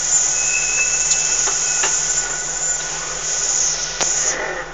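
A steady high hiss inside a Western Star log truck's cab, over the truck's low engine hum; the hiss cuts off abruptly with a click about four seconds in, leaving the engine hum quieter.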